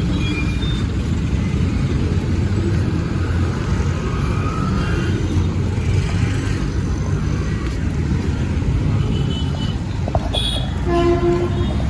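Steady low rumble of a moving vehicle, with a brief higher pitched tone near the end.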